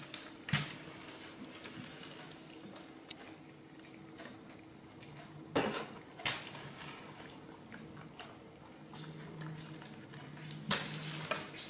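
A few sharp taps and knocks on a metal tabletop as baby macaques move about and handle jackfruit, over a steady low hum.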